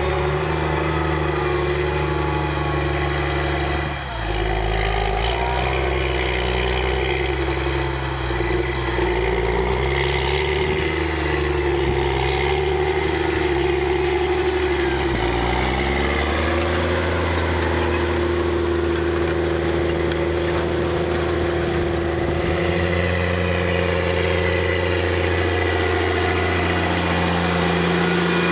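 CAT Challenger MT765B rubber-tracked tractor's diesel engine running steadily under load while pulling a Lemken Rubin 9 disc harrow through stubble. The engine note shifts pitch a couple of times, with a short rise about a quarter of a minute in.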